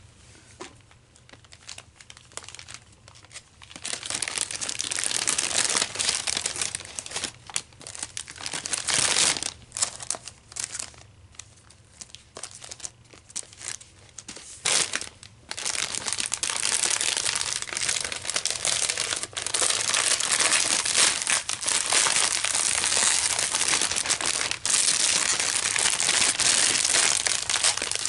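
Clear plastic bag crinkling as it is handled. At first it comes in short bursts with pauses, then almost without a break from about halfway.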